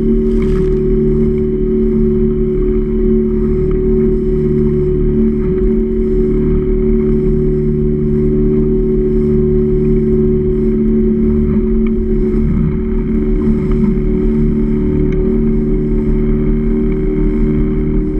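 Boat engine running steadily at a constant speed, with an even, unchanging hum.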